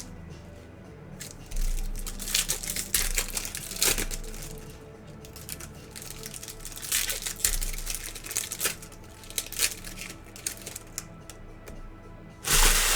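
Plastic packaging crinkling and rustling in irregular bursts as it is handled, with faint background music. A louder rustling burst starts near the end.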